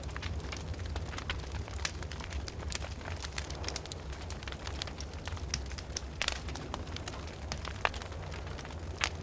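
Wood fire crackling in a fireplace: a constant scatter of sharp pops and snaps at irregular intervals, a few louder ones in the second half, over a steady low rumble.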